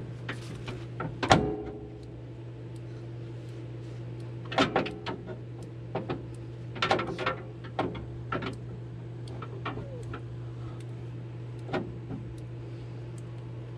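Scattered metal clanks, knocks and rattles as a steel cargo-bed prop rod is bent and worked into its notch on the utility vehicle's frame rail, over a steady low hum.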